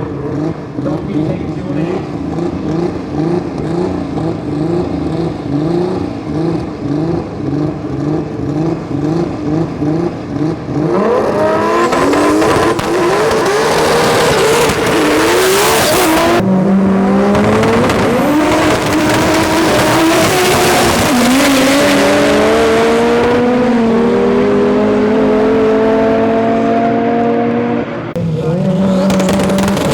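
Drag race car engines revving in short rhythmic bursts, about three a second, on the limiter while held at the line. About eleven seconds in they go to full throttle and accelerate hard, the engine note climbing and dropping back at each gear change.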